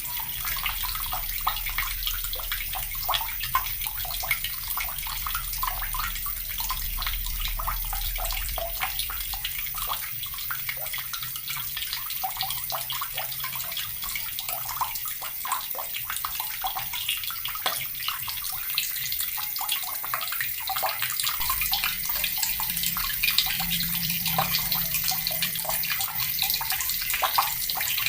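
Water running steadily from a tap, splashing and spattering as it falls.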